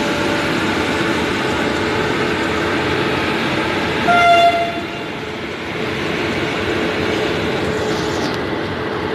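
Gujarat Mail's LHB passenger coaches rolling slowly past, a steady running noise of wheels on rails. About four seconds in, a locomotive horn gives one short, high toot, the loudest sound.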